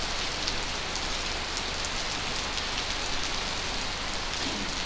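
Rain falling steadily: an even hiss with scattered sharper drop hits.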